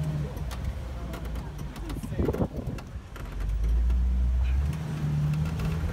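Off-road tour Jeep engine running at crawling speed, a steady low hum. It swells louder and deeper for about a second, starting about three and a half seconds in.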